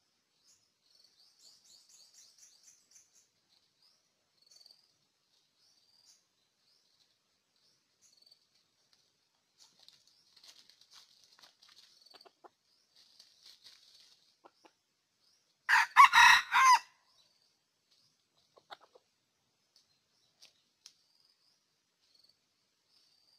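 Red junglefowl rooster crowing once: a short crow of about a second, broken into three parts, about two-thirds of the way in. Faint high chirps from small birds come and go around it.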